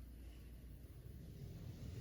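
Faint, steady low rumble of background noise with a light hiss, growing a little louder near the end.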